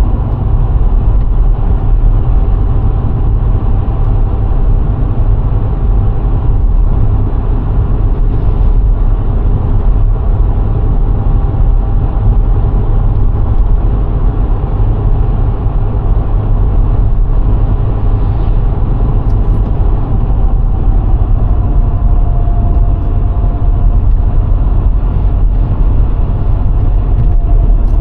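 VW Golf IV 1.6 driving at a steady pace: a constant deep rumble of road and wind noise with a faint engine hum. Near the end the engine's pitch drops slightly as it slows.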